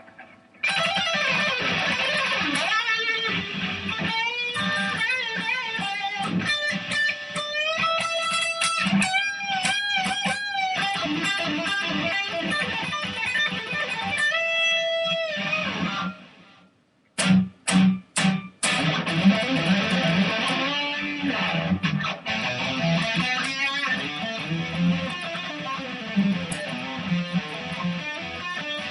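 Custom-built Ibanez Fireman electric guitar with DiMarzio pickups being played: lead lines with string bends, a short break a little past halfway, then a few short chord stabs and more playing.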